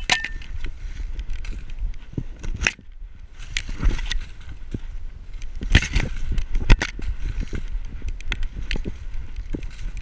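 Heard from a camera on a dog's back: the dog's feet thumping and crunching through snow in an uneven gait, with dry corn stalks and leaves crackling and scraping against the camera as the dog pushes through standing corn.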